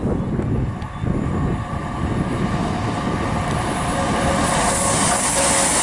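Diesel locomotive hauling a container freight train approaching, its engine running steadily with a faint whine and growing louder. From about four and a half seconds in, a hiss of wheels on rail builds.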